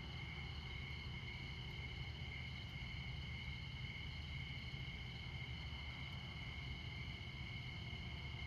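Crickets chirping in a steady chorus, over a low steady rumble of interstate traffic.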